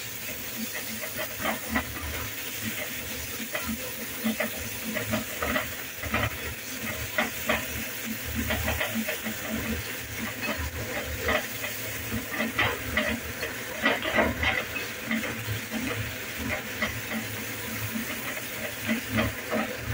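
Wooden spatula stirring and scraping onion-tomato masala in a metal kadai, with irregular scrapes over a steady sizzle of the masala frying in oil.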